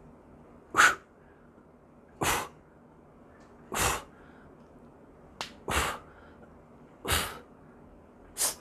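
A man breathing out hard through his mouth on each rep of a bench press: six short, sharp exhalations about a second and a half apart. There is a single faint click just before the fourth breath, and no rattle from the machine.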